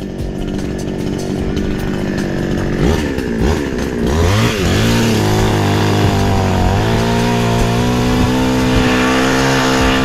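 Chainsaw engine running loud, its pitch swinging up and down for a few seconds as the throttle is worked, then held at a steady high speed.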